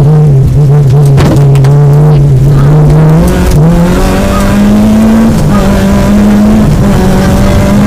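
Peugeot 205 GTI rally car's four-cylinder engine under load, heard from inside the cabin. Its pitch holds, steps up about three seconds in and climbs, then drops back a little past five seconds. A sharp knock comes about a second in.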